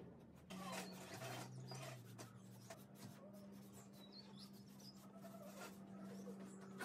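Faint scratching and rubbing on a bare pine top as it is scraped and then wiped down with a cloth, over a low steady hum.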